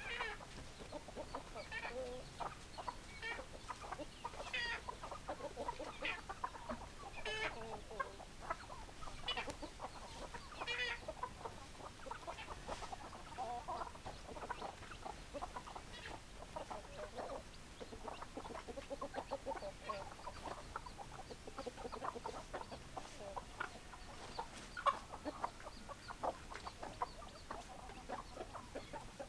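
A flock of hens clucking, with many short calls overlapping without a break, and now and then a higher, wavering call above them.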